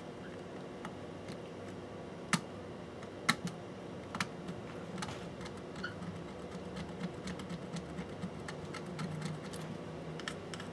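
A pointed metal pick scraping and clicking against a circuit board, scratching away the coating around a lifted solder pad to bare the copper. Small ticks run throughout, with four sharper clicks about a second apart in the first half, over a steady low hum.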